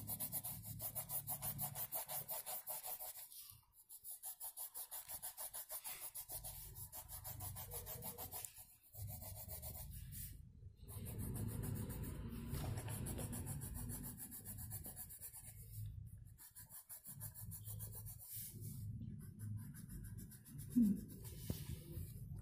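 Coloured pencil rubbing on paper in quick, rhythmic back-and-forth shading strokes, with short pauses between runs. A brief squeak comes near the end.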